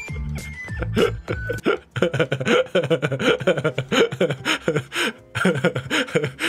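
Background music with a bass line for about the first second and a half, then a high-pitched anime girl's voice delivering lines in quick, choppy syllables.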